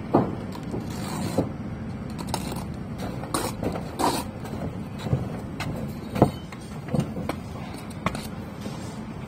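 Bricklaying work: a trowel and bricks knocking and scraping on the wall, about nine sharp, irregular knocks over a steady low rumble.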